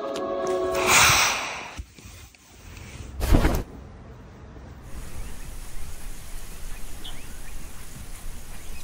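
A rushing whoosh about a second in and a shorter, sharper swish about three seconds in, then a steady hiss with low rumble: wind on the microphone outdoors.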